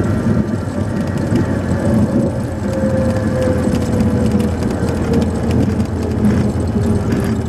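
Single-engine Cessna 182 Skylane's piston engine and propeller running at low power during the landing roll-out, heard from inside the cockpit. A steady engine drone, with a thin tone that slowly falls in pitch from a few seconds in.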